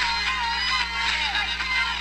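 Background music: a song with a sliding melody line, over a steady low hum.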